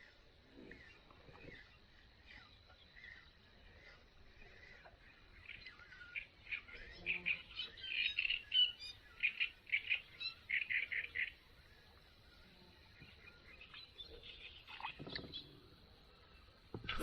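Wild birdsong: faint scattered chirps, then a bird sings a quick run of short, high chirping notes for several seconds in the middle.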